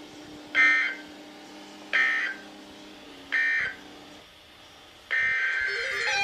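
Emergency Alert System data tones: three short warbling bursts of the digital end-of-message code, about a second and a half apart, marking the end of the warning. A longer burst of the same tones starts about five seconds in.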